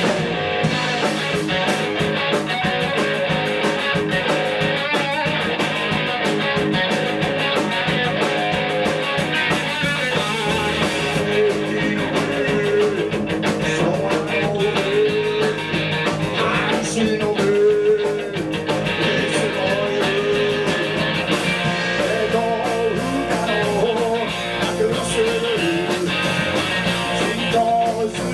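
Live rock band playing: electric guitars through amplifiers and a drum kit, loud and continuous, with a voice singing over them.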